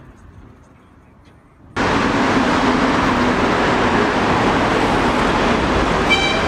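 Road traffic: cars driving past close by, cutting in loudly about two seconds in after a quieter stretch. Near the end a high tone joins in.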